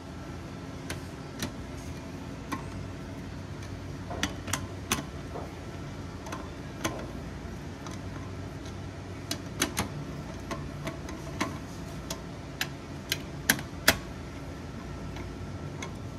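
Irregular light metallic clicks and taps of a hand tool running nuts down onto the studs of a billet fuel-tank flange, over a steady low hum.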